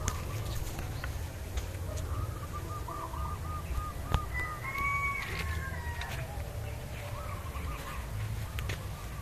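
A bird calling: a quick run of short repeated notes, then a couple of longer calls, then another short run near the end, over a steady low rumble.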